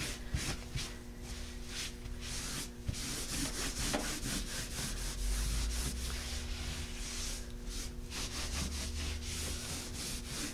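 Cloth rubbing over a frame's raised Textura-paste reptile texture in repeated strokes, wiping the excess wax off the waxed chalk-paint finish.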